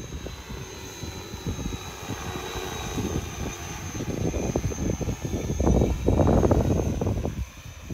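INNLOI agricultural spraying quadcopter drone flying close past, its rotors giving a steady high whine over a gusty low rumble. The sound swells as the drone nears, is loudest about six seconds in, and drops off near the end.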